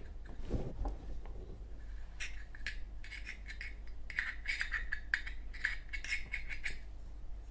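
Scratchy rubbing and small metallic clicks of fingers working the steel insert of a Zippo lighter while rayon packing balls are pressed in around the new wick. The sounds come in irregular clusters from about two seconds in.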